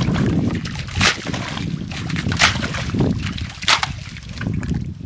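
Muddy water sloshing as a metal bowl scoops it out of a mud hole, with three splashes as bowlfuls are tipped out, about a second and a quarter apart.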